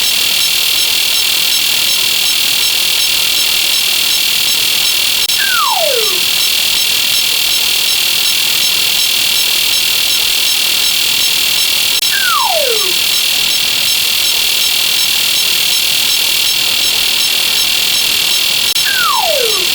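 Slide-whistle sound effect gliding down in pitch, three times about seven seconds apart, over a steady high-pitched buzz.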